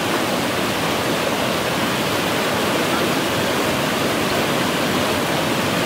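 Brown floodwater rushing and churning over a concrete dam spillway, a steady, even rush of white water.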